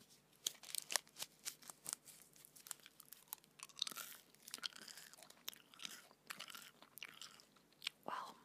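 Gum chewing close to a microphone: irregular wet mouth smacks and clicks, several a second.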